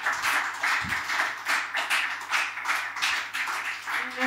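Small audience clapping, the separate claps distinct. Near the end a sustained violin note comes in under the applause.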